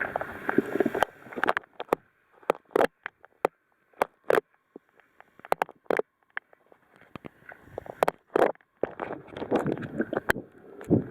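Water sloshing and splashing, broken by a string of sharp clicks and knocks, with louder rushing stretches near the start and again near the end.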